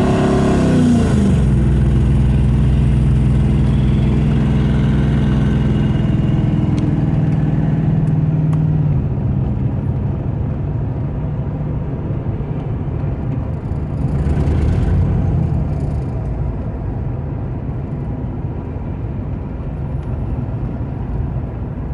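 4.6 L V8 engine pulling a vehicle on the road. Its pitch falls in the first second, then holds steady, and it eases off about nine seconds in, leaving quieter running and road noise. The owner says this engine is misfiring on cylinders 7 and 8.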